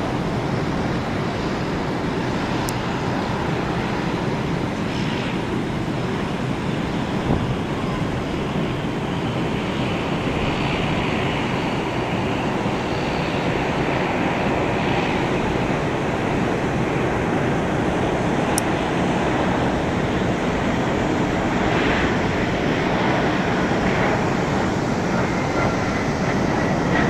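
Boeing 737-400 jet engines heard from a distance as the airliner approaches and touches down. The sound is a steady rush that grows a little louder, with a faint whine near the end.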